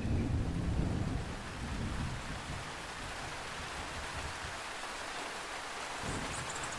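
Heavy rain falling steadily in a thunderstorm, with a low rumble of thunder in the first couple of seconds that fades away.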